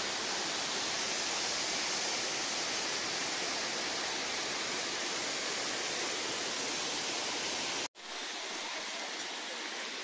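Steady rushing of the Tirathgarh waterfall, water pouring down rock ledges. About eight seconds in, the sound cuts out for an instant and comes back as a quieter, thinner rush.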